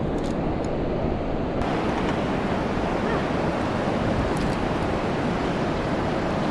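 Steady rush of fast, turbulent river water around a small boat, with wind buffeting the microphone. The hiss gets brighter about a second and a half in.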